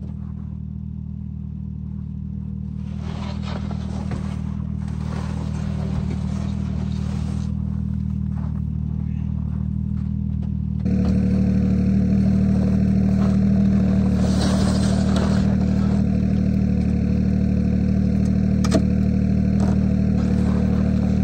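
Snowmobile engine idling steadily, a little louder and brighter from about eleven seconds in.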